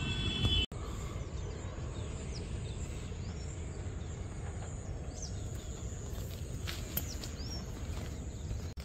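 Outdoor ambience: a few short bird chirps now and then over a steady low rumble of background noise.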